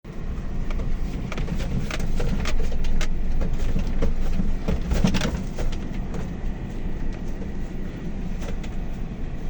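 Low rumbling noise with irregular sharp clicks and knocks, louder for the first few seconds.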